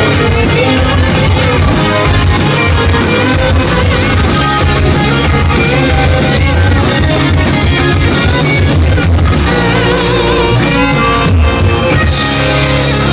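Live rock band playing loud, with electric guitar and drum kit; a guitar solo or instrumental section with little or no singing.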